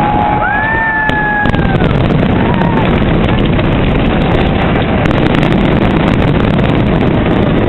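Loud, dense rumbling noise of wind buffeting the camcorder microphone amid the fireworks crowd, with a few whistling pitch glides in the first couple of seconds.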